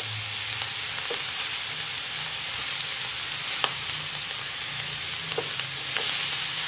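Fresh fenugreek leaves and potato pieces sizzling in a hot oiled wok as they are stirred with a metal spatula: a steady frying hiss with a few light clicks of the spatula against the pan.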